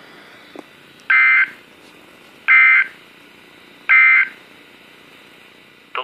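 Three short EAS/SAME digital data bursts, a buzzy two-tone warble about a second and a half apart, from a NOAA Weather Radio receiver: the end-of-message code that closes the warning broadcast. Low radio hiss between the bursts.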